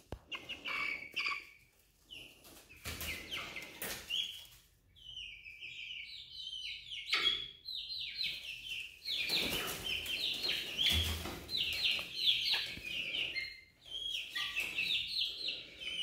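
Young chickens peeping: many quick, high chirps in a steady stream, with a brief knock about seven seconds in.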